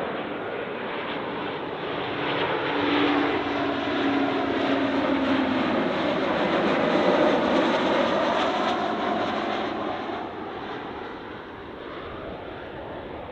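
Airliner on short final passing low overhead at approach power: engine noise builds to a peak about seven to eight seconds in, with a sweeping whoosh as it passes, then fades away.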